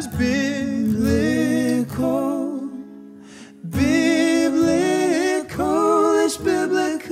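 Pop ballad music: a male singer holds long, wavering wordless notes over a low accompaniment. It dips briefly about three seconds in, then the voice comes back.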